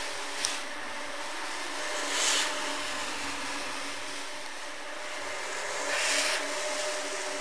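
A single-disc rotary floor scrubber running steadily with a motor hum as its brush works shampoo foam into a rug. Louder hissing swishes come about two seconds in and again near six seconds.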